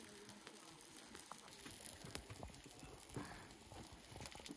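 Faint crackling of a wood cooking fire: scattered light clicks and a few soft knocks.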